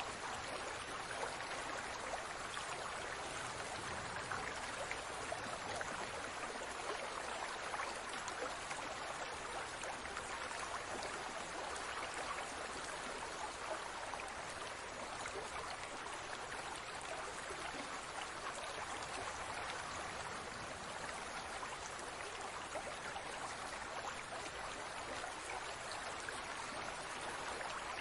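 Aquarium water bubbling and trickling steadily, an even wash dotted with many tiny bubble pops.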